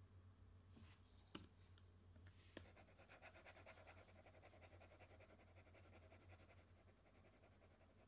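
Near silence over a steady low electrical hum. A few faint sharp clicks come in the first seconds, then a faint, fast, rapidly repeating rasp runs for about four seconds.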